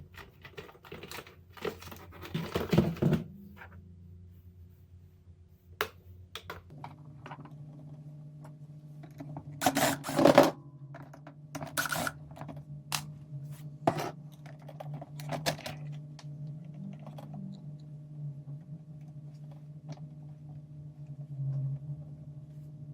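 Scattered clicks, knocks and thunks of hands handling and taking apart an electric rice cooker, with a louder clatter about ten seconds in. A steady low hum comes in about seven seconds in.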